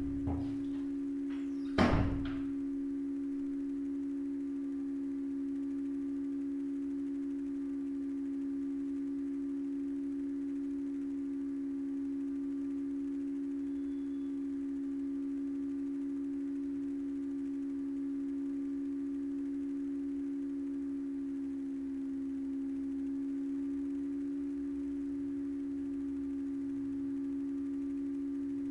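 A steady low hum held at one pitch, with one loud thump about two seconds in.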